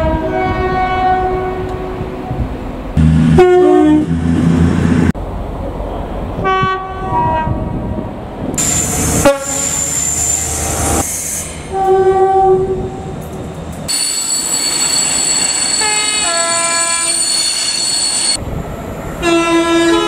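A run of short clips of British passenger trains sounding their horns, cut one after another: loud two-note horn blasts from different trains, each stepping between a higher and a lower note. A long steady high-pitched squeal fills a stretch near the middle.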